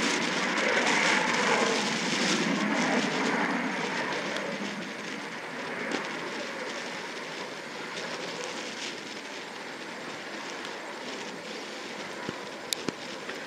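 Jet noise from a T-38 Talon's twin turbojet engines on takeoff, loud at first and fading steadily as the jet climbs away. Two brief clicks near the end.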